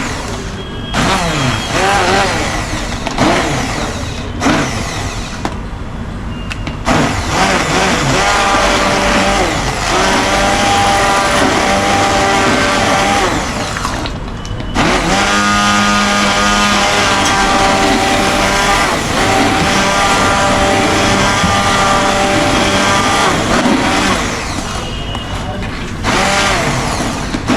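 Electric blender running to purée a cooked vegetable gravy: short pulses with pauses for the first several seconds, then a steady whining run. It stops briefly about halfway, then starts again.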